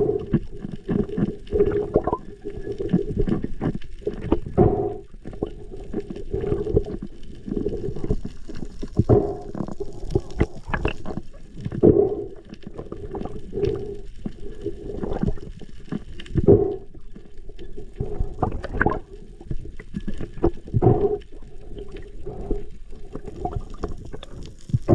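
Water sloshing and splashing in irregular strokes every second or two, over a steady low hum.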